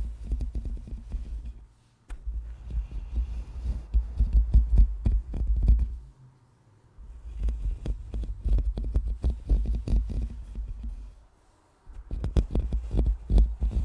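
A microphone being scratched and brushed up close: quick rubbing strokes with a heavy low rumble, in runs broken by short pauses about two seconds in, around the middle, and shortly before the end.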